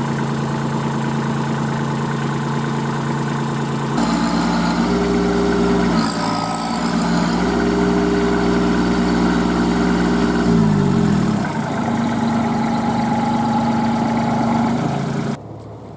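Kubota B2441 compact tractor's three-cylinder diesel engine running under load, stuck in deep mud. It picks up and gets louder about four seconds in, then its revs fall away and settle about ten seconds in. The sound drops off sharply just before the end.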